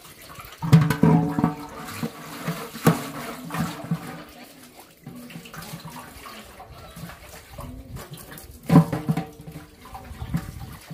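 Water pouring and splashing from a large metal cooking pot tipped into a colander, draining the pot. The metal pot knocks and rings against the colander a few times, loudest about a second in and again near the end.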